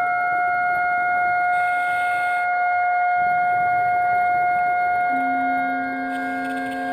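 Background music of slow, long-held notes with no beat. A new low note comes in about five seconds in.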